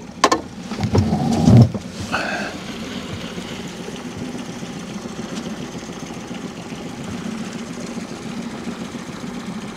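Small outboard motor running steadily at trolling speed, a low even hum. A few sharp knocks and a louder thump come in the first two seconds.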